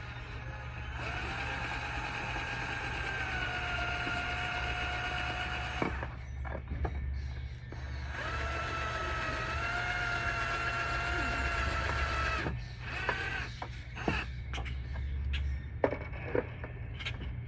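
Power drill running in two stretches of about five seconds each, its motor pitch dipping slightly as it takes load and then holding steady. A few sharp clicks and knocks follow.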